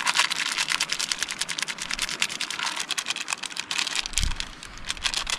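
MRE flameless ration heater pouch being crushed and crinkled in the hands after water is added, a rapid, dense crackling. A brief low bump comes about four seconds in.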